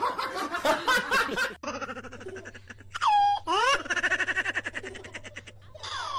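Domestic cat yowling: a long falling cry, a quick rising one, then a drawn-out rapidly pulsing, rattling call, and another falling cry near the end. A person laughs briefly at the start.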